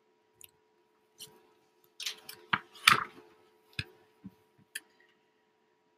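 Picture book page being turned and handled: scattered paper rustles and light clicks, busiest about two to three seconds in.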